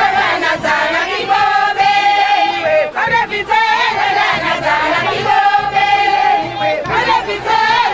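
A crowd singing together in chorus, with several long held notes.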